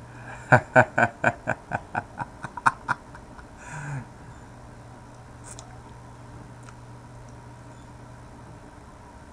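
A man laughing in a run of about a dozen quick bursts that speed up and fade over the first three seconds, ending in a breathy sigh. A steady low electrical hum runs underneath.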